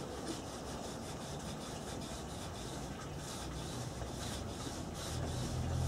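Soft, steady rubbing of a cloth over a yew wood frame as sanding sealer is wiped on.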